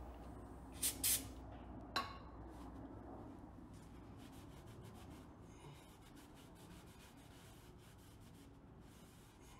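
Shop rag wiping faintly over the drum brake shoes and backing plate to clean them. About a second in come two short hisses, then a single knock near two seconds.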